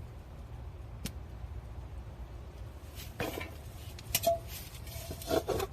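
Chili plants being picked by hand: a sharp click about a second in, then a cluster of clicks and rustles in the second half, over a steady low rumble.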